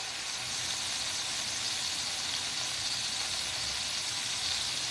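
Chicken breasts frying in a countertop electric skillet: a steady sizzle.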